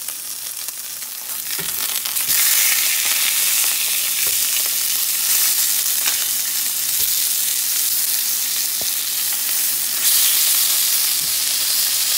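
Pork chops sizzling as they sear in hot olive oil in a cast iron frying pan, with a few light taps and scrapes of a spatula turning them. The sizzle gets louder about two seconds in.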